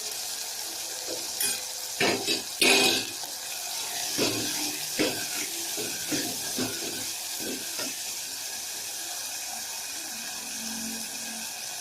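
Tomatoes, curry leaves and a dried red chilli sizzling steadily in hot oil in a pan while being stirred, with a few knocks of the spoon against the pan, the loudest a little under three seconds in.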